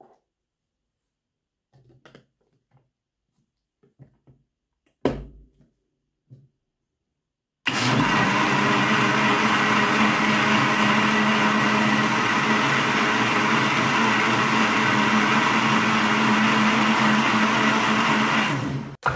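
Countertop blender running at full speed, churning small soft balls in liquid, with a steady hum under the churning. It starts abruptly about eight seconds in, after a few faint taps and a knock, and cuts off just before the end.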